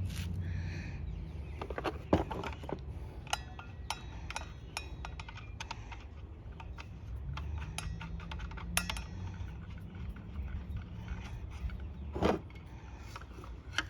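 Scattered metal clicks and clinks of a circular saw's blade, arbor bolt and washer being handled and fitted back on the arbor, over a steady low hum.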